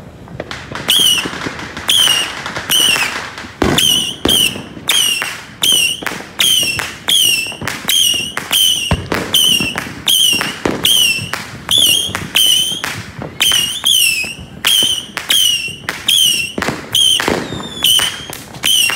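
A firework on the ground going off in a long, even series of loud cracks, about one and a half a second. Each crack is followed by a short, wavering high whistle.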